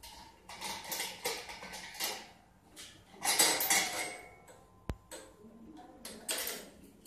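Stainless-steel parts of a piston filling machine clanking and scraping in irregular bursts as the hopper fitting is worked loose and the hopper is lifted off. There is one sharp metallic click about five seconds in.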